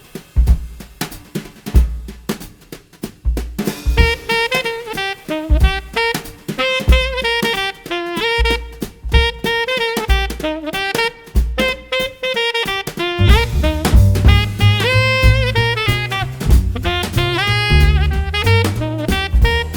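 Background music: an instrumental track with a drum kit beat under a melodic lead instrument with bending notes. The bass and drums fill out and grow louder about two-thirds of the way through.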